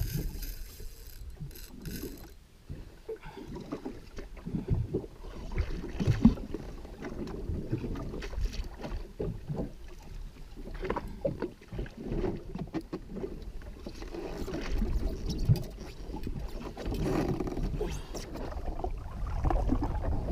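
Water slapping and sloshing against the hull of a drifting jet ski, with irregular knocks and a low rumble.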